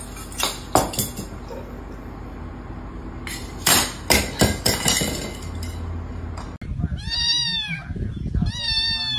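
A few light clinks and taps, then a kitten meowing twice, each call rising and then falling in pitch, about a second apart.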